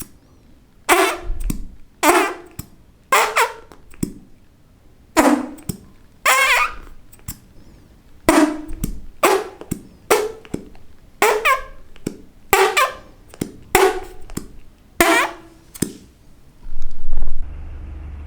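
A fart sound-effect gadget playing a quick series of short, pitched fart noises, one every second or so. Near the end a longer, louder burst gives way to a steady low rumble.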